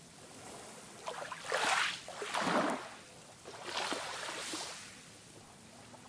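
Calm sea: small waves lapping and splashing in about three soft swells, with quieter water hiss between them.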